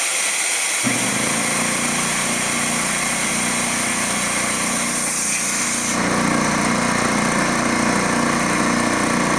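Air hissing out, then about a second in the DeWalt D55146 electric air compressor's motor kicks on and runs steadily. The hiss stops about six seconds in. The compressor turns on after only a little air is let out because its check valve is faulty and letting air back by.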